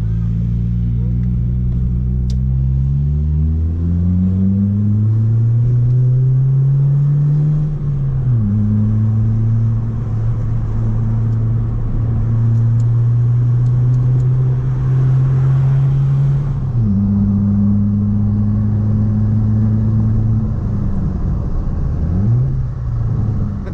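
Chevrolet Corsa 1.4 four-cylinder engine through an aftermarket sport exhaust with the silencer insert removed, heard while driving. The exhaust note climbs steadily under acceleration for about eight seconds, drops suddenly at a gear change, holds at a steady pitch, then falls away near the end as the car slows.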